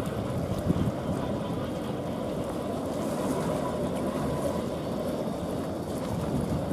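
Steady wind and sea noise, with gusts buffeting the microphone, the strongest about a second in.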